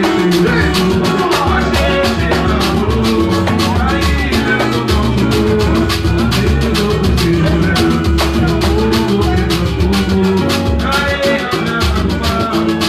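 Band music with a fast, steady beat of dense percussion over a bass line and melodic instruments.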